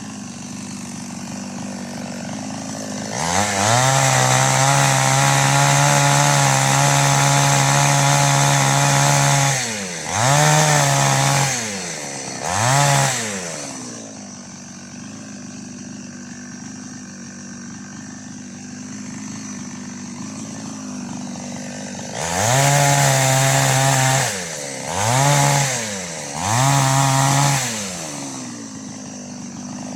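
Two-stroke chainsaw with an 18-inch bar idling, then opened up to full throttle for about six seconds, blipped twice and dropped back to idle; later another short full-throttle run and two more blips.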